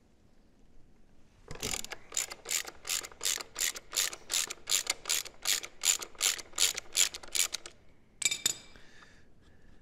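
Hand socket ratchet clicking in quick, even strokes, about three or four clicks a second, backing off a nut on the rear suspension linkage of a Kawasaki KLX300R dirt bike. The clicking stops and a short metallic clatter follows about half a second later.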